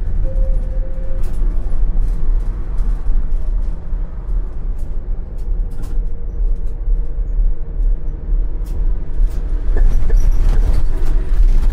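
ČKD Tatra T6A5 tram running on its track, heard from the driver's cab: a steady low rumble with scattered clicks and knocks, a faint steady tone, and the rumble growing louder near the end.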